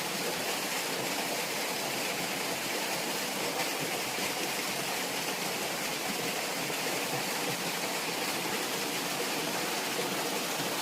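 Steady rushing of a creek's water falling over rocks, an even hiss with no breaks.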